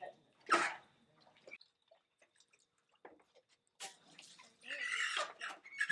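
Water splashing and sloshing in a pot of scalding water as a chicken is dunked before plucking, a short splash just after the start and a longer one about four seconds in.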